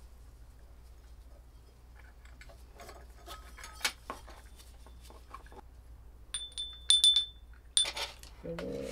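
Ceramic wind-bell planter being handled, with light knocks and scraping, then its clay parts clinking together in a few sharp, ringing strikes near the end.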